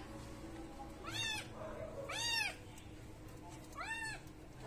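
Small kitten mewing three times, high-pitched calls that rise and fall in pitch, while it is held and washed.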